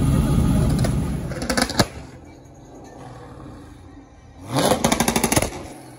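Lifted pickup truck's engine running loud at low speed, with a short rev about a second and a half in before the sound drops away. Near the end, an engine revs up for about a second with a rapid pulsing beat.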